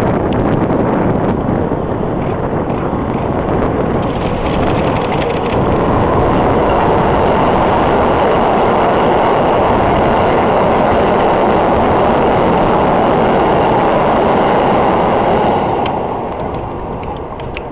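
Keikyu 1000 series electric train passing close by, a steady rumble of wheels on the rails that swells as the cars go past and fades near the end as the last car clears. A brief run of fast clicking sounds about four seconds in.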